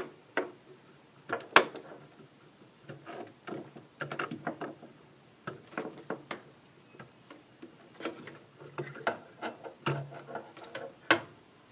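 Irregular clicks and light knocks of ribbon cable connectors being pulled out of a circuit card's headers, with the handling of the cables. The sharpest clicks come about one and a half seconds in and again near the end.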